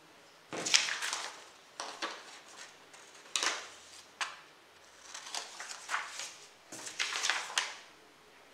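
Sheets of printer paper rustling as they are picked up, shuffled and laid down on a wooden table, in a series of short bursts.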